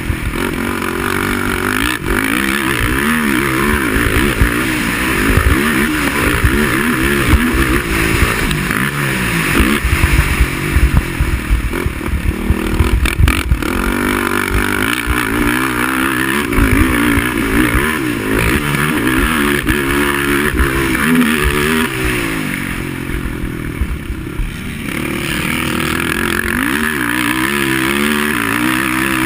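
Racing quad's engine revving hard and easing off again and again as it is ridden around the track, its pitch rising and falling with the throttle. It drops quieter for a couple of seconds a little past the middle, then picks up again.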